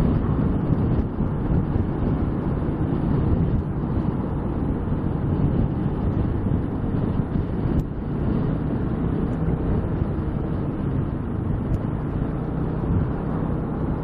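Steady wind buffeting on the helmet-mounted microphone while riding at road speed, with the Piaggio MP3 LT 500 scooter's single-cylinder engine humming underneath at an even pace.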